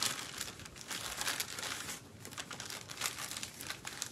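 Crinkling of a soft plastic baby-wipes packet as a wipe is handled, denser in the first two seconds and sparser after.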